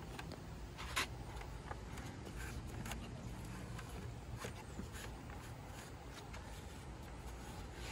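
Faint clicks and light taps of hands handling the plastic underside and brush roll of an upright vacuum cleaner, one sharper click about a second in, over a low steady background rumble.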